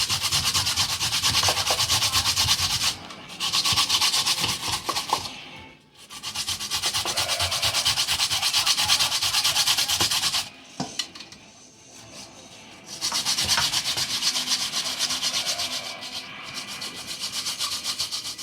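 Raw sweet potato being rubbed fast against a small hand grater: rapid, even rasping strokes in runs of a few seconds, broken by short pauses and one longer lull about two-thirds of the way through.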